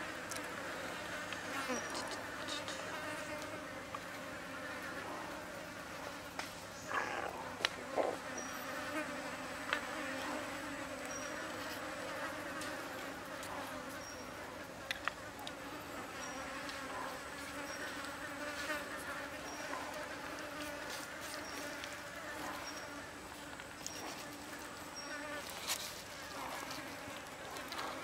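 Insects buzzing steadily in a forest chorus, with a faint high chirp repeating about once a second. A few light taps and clicks from hands working food on a wooden board stand out, around a quarter of the way in, then around the middle and near the end.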